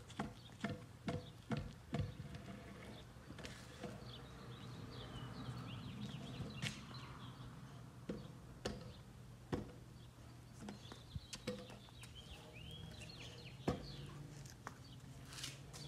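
Stunt kick scooter rolling on a concrete driveway, faint: light clicks about twice a second at first, then scattered clicks and knocks. Small birds chirp in the background in two spells.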